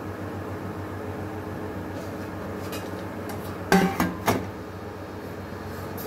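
Steel kitchen utensils clinking and knocking: a few light clicks, then a short clatter of two or three knocks a little past halfway, over a steady low hum.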